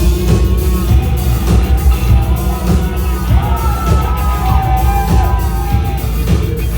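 Live band playing loudly with drums striking steadily under bass and keyboards, and a singing voice over it, with whoops from the audience.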